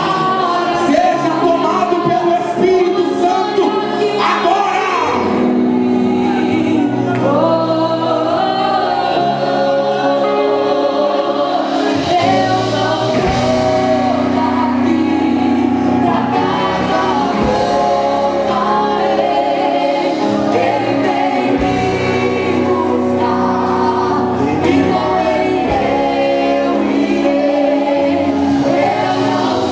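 Gospel worship music with many voices singing over sustained keyboard chords and a bass line that changes every few seconds.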